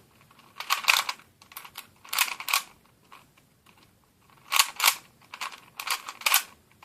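Plastic Latch Cube twisty puzzle being turned by hand: its layers click and clack in about four short bursts with pauses between.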